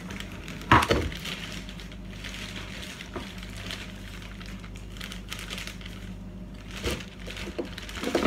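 Thin plastic shopping bag rustling and crinkling as hands rummage inside it for groceries, with a sharp knock about a second in and another near the end.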